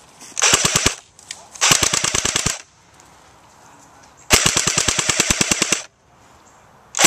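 Airsoft rifle firing three full-auto bursts of rapid clicks at about thirteen shots a second: a short burst, a slightly longer one, then the longest, about a second and a half, with another burst starting right at the end.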